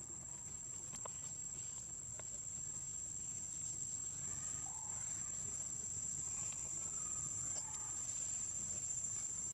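Insects droning outdoors, a steady high-pitched buzz that never breaks, with a few faint short calls about halfway through and again near the end.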